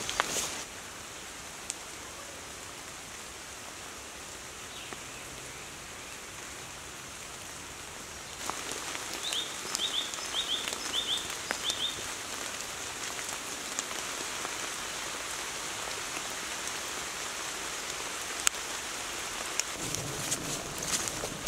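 Rain falling steadily on leaves and undergrowth, a pattering hiss that grows louder about eight seconds in. A bird gives a quick run of about six short chirps soon after. Near the end, footsteps on a grassy path.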